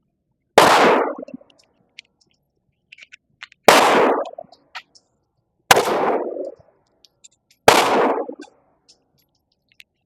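Glock G44 .22 LR semi-automatic pistol firing four single shots, about two to three seconds apart, each with a short echoing tail and faint clicks between them.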